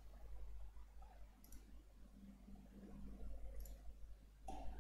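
A few faint, spaced-out computer mouse clicks over a low steady background hum.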